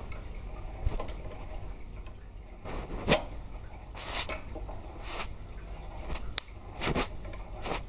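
Mini lathe's three-jaw chuck turned by hand in short strokes, working a thin tool from the tailstock drill chuck into an aluminium part: irregular sharp metallic scraping clicks about once a second, the loudest a little past three seconds in.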